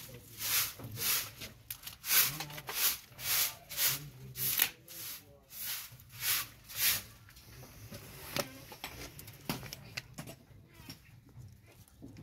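Rhythmic scraping strokes, about two a second, that stop about seven seconds in, followed by a few light knocks.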